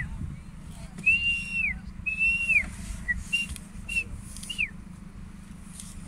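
A series of clear whistled notes at one high pitch. Most are held about half a second and slide down at the end; the ones after the middle are shorter. A steady low rumble runs underneath.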